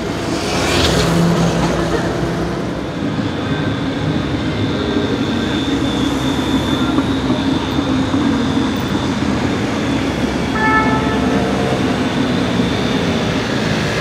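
Mercedes-AMG A45 Edition 1's turbocharged four-cylinder, breathing through a custom aftermarket exhaust, running loud as the car drives. It has a rough, fart-like exhaust note and a short crackly burst about a second in.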